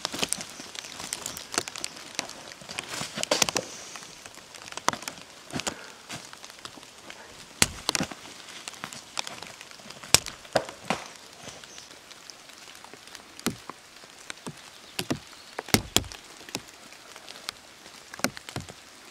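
Footsteps through forest undergrowth: irregular snaps and crackles of twigs and leaf litter underfoot.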